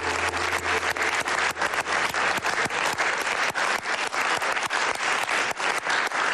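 Studio audience and contestants applauding, a dense stretch of many hands clapping. The tail of a music sting fades out within about the first second.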